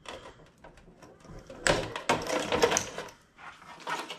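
Cable connectors being worked loose with pliers and pulled off a solar inverter's circuit board: irregular plastic and metal clicks and rattles, busiest and loudest in the middle.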